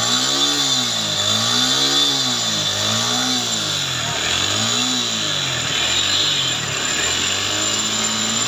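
Suzuki Gixxer's single-cylinder four-stroke engine being revved up and down with the throttle four times, then settling to a steadier run. It has just been repaired after a fault of abnormal engine sound and loss of top speed, and the mechanic presents it as now running right.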